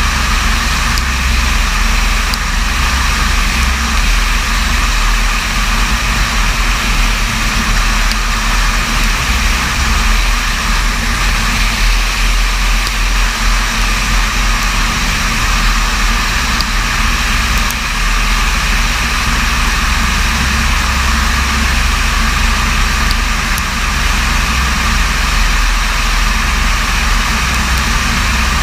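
Light aircraft engine running steadily in flight, a constant low drone mixed with airflow noise.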